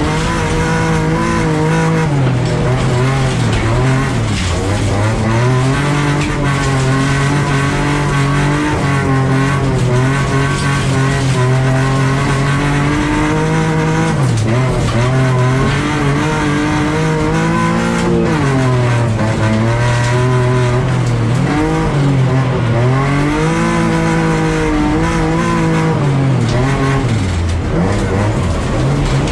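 Bilcross race car's engine heard from inside the stripped, roll-caged cabin while racing on a dirt track, pulling hard with the revs climbing and falling as the driver accelerates, lifts for corners and changes gear. The revs drop sharply several times and build back up.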